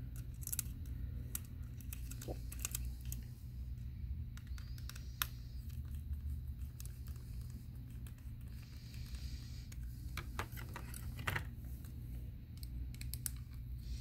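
Irregular small clicks and taps of a screwdriver and a 2.5-inch SSD in its plastic and metal mounting bracket being handled as screws are fitted, over a low steady hum.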